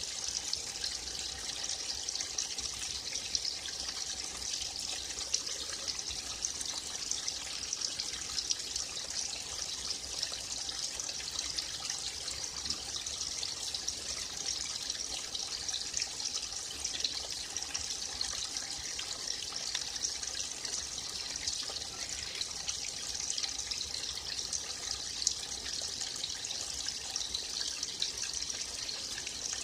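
Forest stream flowing steadily, a continuous trickling and splashing of water with no change in level.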